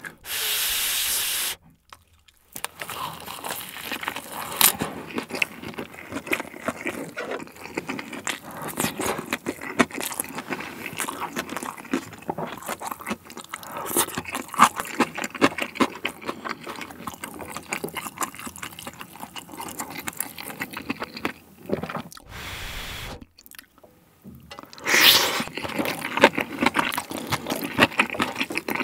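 Close-miked chewing of a leafy vegetable wrap filled with cheesy fried rice, with crunching and wet mouth sounds. Near the end a wooden spoon scrapes fried rice across a nonstick griddle pan.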